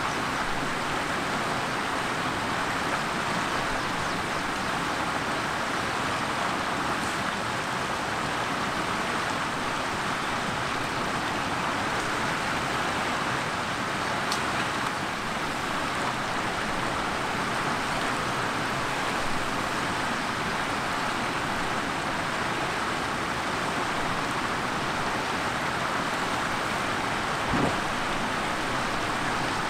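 Steady rushing of flowing river water, with a single brief thump near the end.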